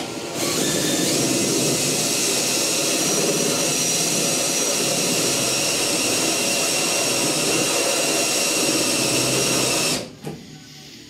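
Drill running steadily for about ten seconds, boring a 3/8-inch spot weld cutter into the roof sheet metal to cut out a spot weld. It has a high whine that rises slightly about a second in, and it stops suddenly about a second before the end.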